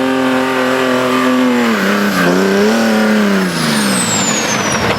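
Off-road buggy engine running at high revs; the note wavers about two seconds in as the throttle eases, then falls away near the end. A thin high whine glides down in pitch as it goes.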